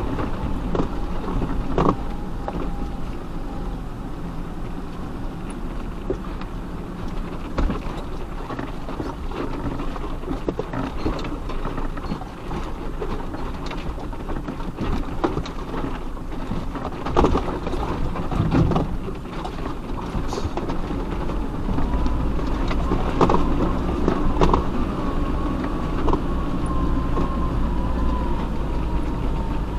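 Off-road vehicle crawling slowly over a rocky track: the engine runs low and steady with a faint whine that wavers in pitch, and scattered knocks and clunks from stones and the suspension, the loudest a little past the middle.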